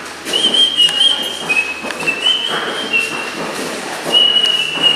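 Class 444 electric train's wheels squealing on a curve of track: a shrill screech that starts about a third of a second in, jumps between a few pitches and comes and goes, over the rumble of the moving train.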